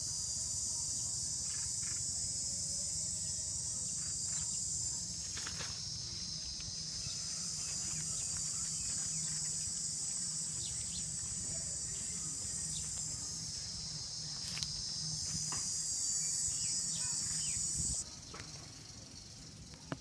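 Insects such as crickets or cicadas keeping up a steady, high-pitched shrill chorus that swells and eases slightly, then drops away abruptly near the end.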